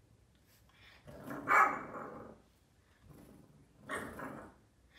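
A 4-month-old Boston terrier puppy barking in a tantrum: a longer, louder bark about a second and a half in, then a shorter one about four seconds in.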